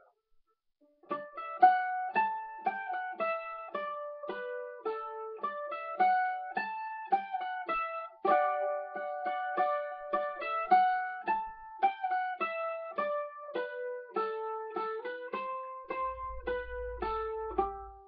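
Oval-hole A-style mandolin played solo with a pick: a melody of single picked notes, each ringing briefly, starting about a second in.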